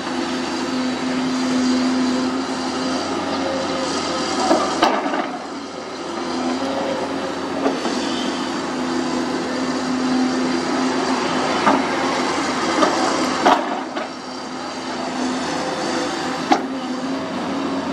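Sunward SWE210 hydraulic excavator's diesel engine running under working load, its note swelling and easing as the boom and bucket move. Several sharp knocks from the bucket and its linkage striking soil and clods ring out over it.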